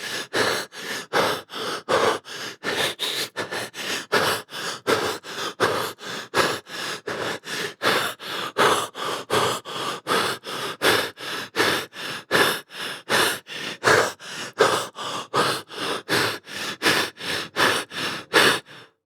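A person breathing fast: rapid, evenly paced in-and-out breaths through the nose and mouth, like panting. The breathing stops abruptly near the end.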